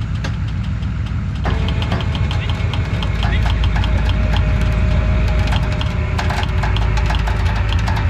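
Tow truck's engine running to drive the wrecker's boom and winch while the stuck pickup's front end is lifted out of the sand, with regular ticking over the drone. The engine gets louder about a second and a half in.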